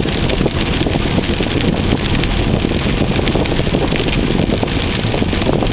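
Steady noise inside a car driving through a thunderstorm: a low road rumble under a dense patter of rain on the car, with no thunderclap.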